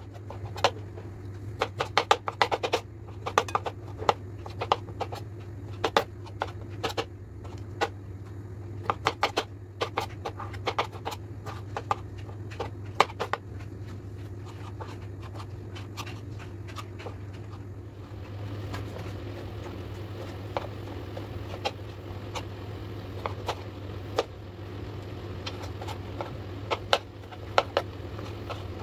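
Kitchen knife dicing peeled tomatoes on a cutting board: quick runs of sharp taps as the blade hits the board, coming in clusters and sparser in the second half, over a steady low hum.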